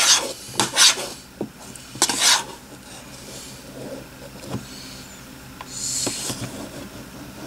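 Chunky, curdled slime being mixed, with a few short scraping and rubbing strokes in the first couple of seconds, then fainter handling.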